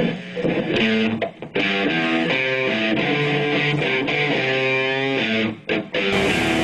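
Music led by an electric guitar playing a riff of stepping notes, dropping out briefly twice.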